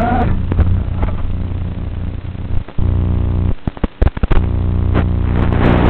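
Small FPV quadcopter's motor whine sweeping in pitch, then falling away just after the start as the drone comes down into the grass, with a few sharp knocks. A steady low buzz follows, broken twice by short dropouts.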